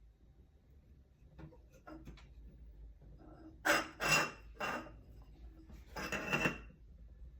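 Wind chime parts clinking and rattling together as they are handled, in a few short bursts with a light ringing note through them.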